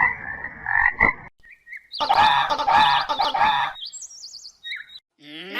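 Frogs croaking in dense, pulsing calls for about the first second, cutting off suddenly. Then comes a different wavering animal call lasting about a second and a half, followed by a few short, high bird chirps.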